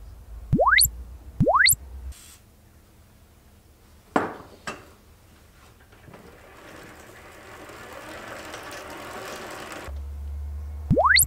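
Dry-erase marker squeaking on a whiteboard as check marks are drawn: two quick rising squeaks near the start and one near the end. In between come two sharp metallic clinks of hand tools and a soft, slowly building hiss.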